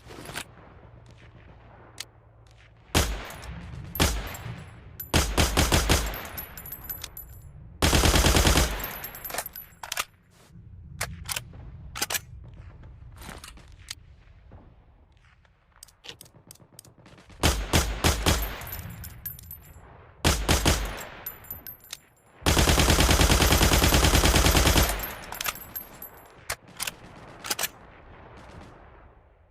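M2 carbine, a select-fire .30 Carbine rifle, firing single shots and short and long fully automatic bursts. The longest burst, about two and a half seconds, comes past the middle.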